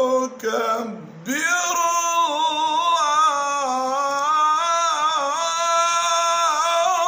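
A male voice reciting the Quran in the melodic, drawn-out tajweed style. A short phrase and a brief break about a second in are followed by one long held line, its pitch wavering in ornaments.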